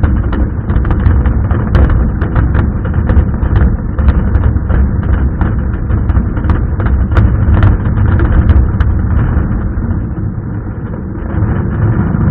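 Fireworks going off in quick succession: a continuous low rumble of bangs with many sharp cracks and crackles over it, thinning a little near the end.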